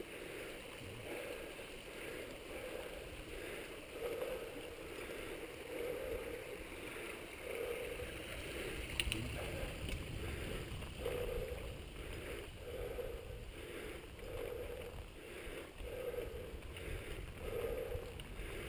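Mountain bike rolling along a dirt singletrack, heard on the rider's action camera: steady rumble of tyres on the trail and wind on the microphone, with a soft rhythmic pulse about once a second and a sharp click about nine seconds in.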